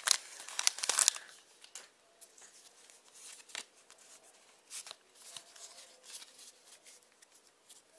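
Foil booster-pack wrapper crinkling for about the first second, then Pokémon trading cards handled and slid against each other in the hand, in soft, scattered rustles.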